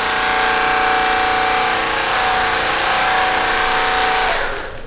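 Theragun PRO percussive massage gun running at its lowest setting, 1750 percussions per minute: a steady motor hum. It is switched off about four and a half seconds in and dies away quickly.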